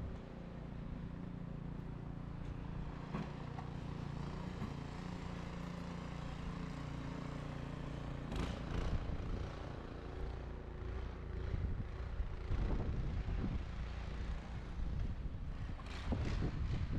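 A vehicle running: a steady low engine hum under an even road-noise rush, with louder whooshing swells about halfway through and again near the end.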